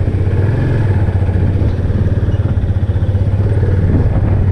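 Motorcycle engine running at a steady, even pace, with no change in speed.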